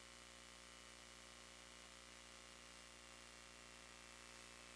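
Near silence: a faint, steady hiss and electrical hum from the FPV video recording chain, with no motor running.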